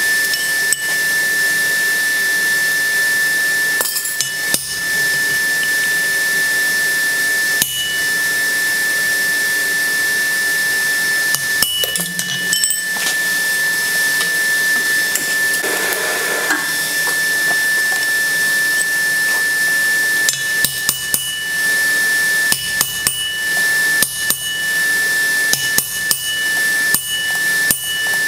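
Blacksmith's hammer striking hot steel on an anvil with a ringing clink. There are a few spaced blows, then quick runs of strikes from about two-thirds of the way through. A steady hiss and a thin high whine run underneath.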